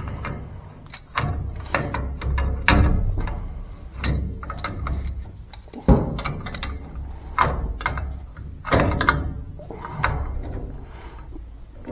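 Pliers wrench working a fitting on a steel gas pipe: irregular metal clicks, knocks and scrapes of the tool's jaws against the fitting, with one sharper knock about halfway through.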